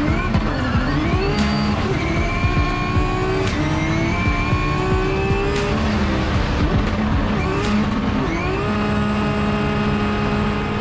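Drift car engine at high revs, rising and dipping every second or two and holding steady between, with tyre squeal under it. Near the end the revs hold steady for a couple of seconds.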